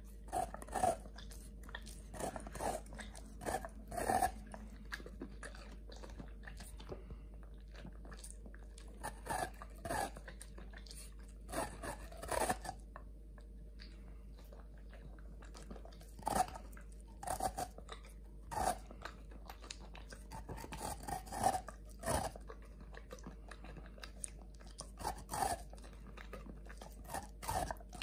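A Doberman licking and crunching bites off a frozen strawberry ice pop. The crunches come in irregular bursts with pauses of a few seconds between them.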